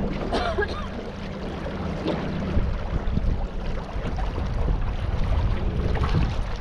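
A boat moving along the river: wind buffets the microphone with a low rumble, over water noise and a low steady hum. A few faint short chirps come about half a second in.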